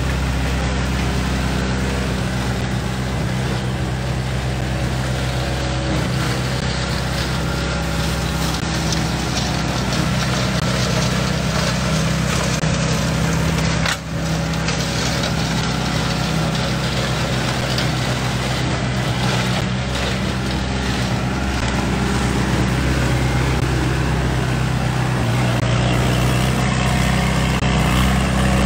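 Kubota compact tractor engine running steadily while it mows grass with a rear-mounted rotary mower, with a brief dropout about halfway through.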